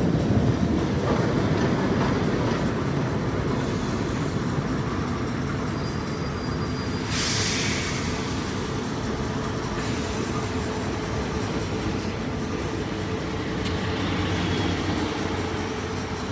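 A 1958 Fiat Materfer series 3000 tram running along street tracks, heard from inside the cab: a steady rumble of wheels on rail and a running hum. A brief hiss comes about seven seconds in.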